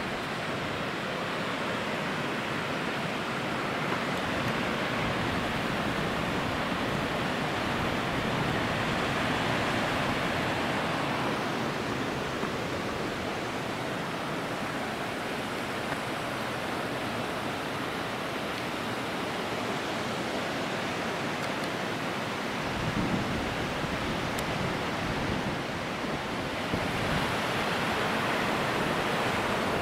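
River water rushing over shallow rapids and a low stepped weir: a steady noise that grows stronger near the end.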